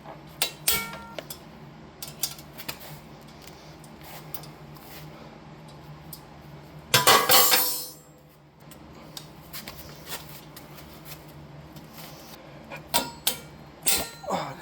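Metal parts and tools clinking and clanking as they are handled, with a louder rattling rush about a second long near the middle.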